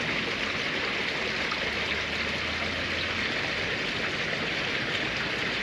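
Steady rush of flowing water, an even, unbroken hiss.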